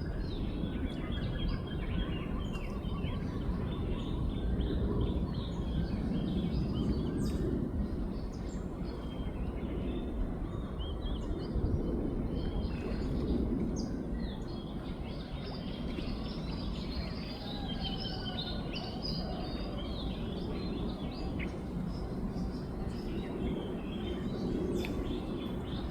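Several birds chirping throughout over a steady low outdoor rumble.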